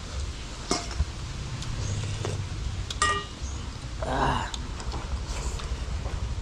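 Eating sounds: a metal spoon clinks against a dish about three seconds in, with a few lighter clicks and a short mouth noise a second later. Under it is a steady low wind rumble on the microphone.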